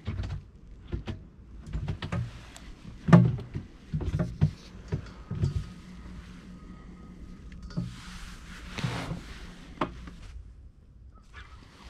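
Scattered knocks and clunks of fishing gear against the hull of a small fishing boat. A steady electric trolling-motor hum with a faint whine runs from about five to ten seconds in, and a short rush of noise comes near nine seconds.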